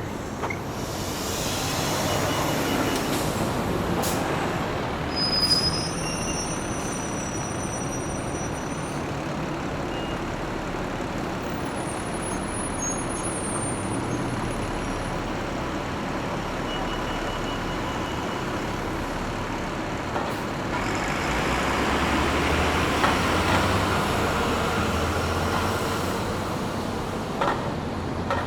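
Bus station ambience: buses running and moving through over a steady wash of traffic noise. The engine noise swells twice, in the first few seconds and again about three-quarters of the way through, with a few brief high squeaks around five seconds in.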